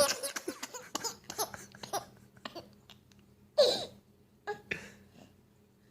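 Baby laughing in a string of short, breathy giggles that trail off over the first couple of seconds, then a brief quiet and one more short burst of laughter about three and a half seconds in, with a couple of little sounds after it.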